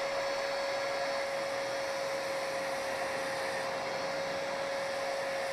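Electric drill running steadily with a constant whine while boring a hole into a motorcycle's stock exhaust, to enlarge it for freer flow.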